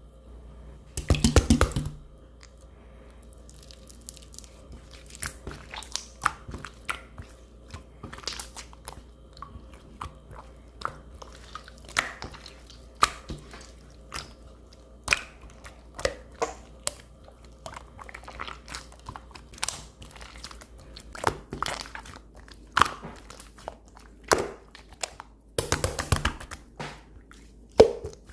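Slime being squeezed and poked by hand, making irregular crisp clicks and pops, with two louder, denser squelching stretches about a second in and near the end.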